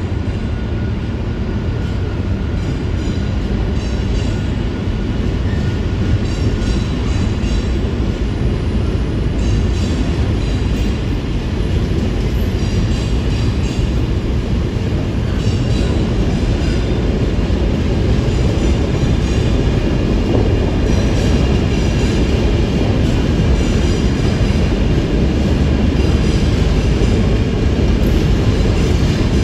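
Loaded container wagons of a departing freight train rolling past, a steady low rumble with wheels clicking rhythmically over the rail joints, growing slowly louder as the train picks up speed.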